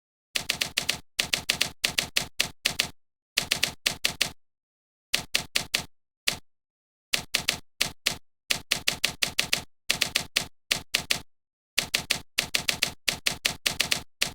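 Rapid sharp keystroke clicks in short runs of several strokes each, with brief silent gaps between the runs, like typing on a typewriter.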